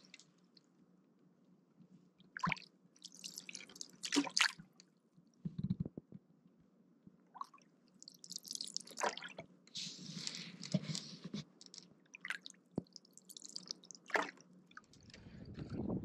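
Canoe paddle strokes on calm water: the wooden blade dipping and pulling, with water splashing and dripping off it in separate strokes every few seconds. A louder, steady low rush starts near the end.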